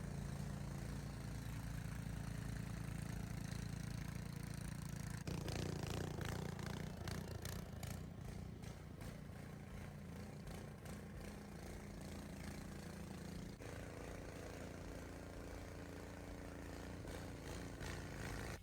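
An engine running steadily, with a rougher, clattering stretch from about five seconds in.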